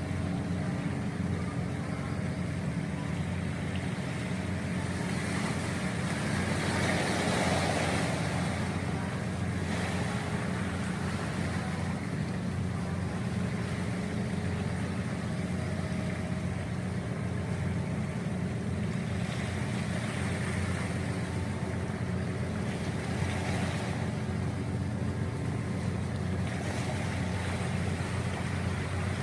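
Steady low drone of a ro-ro ferry's engines, with a rushing noise that swells a few times, most strongly about seven seconds in.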